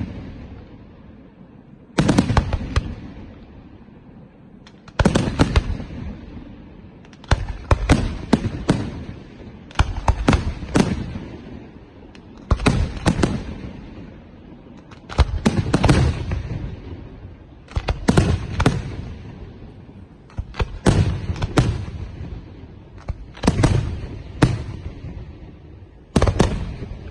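Ferraro Fireworks aerial shells bursting in the night sky. Loud bangs come in clusters of one to several every two to three seconds, and each cluster dies away in a long echo.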